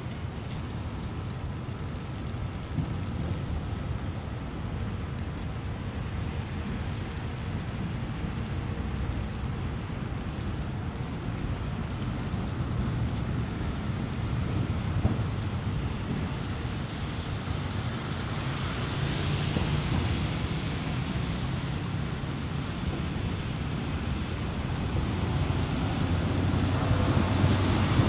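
City street ambience: a steady low rumble of traffic, with a hiss that swells twice, near the middle and again toward the end, as vehicles pass.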